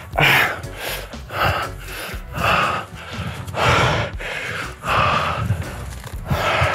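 A man breathing hard and fast close to the microphone, about one loud gasping breath a second, from the strain of climbing steep, slippery rock.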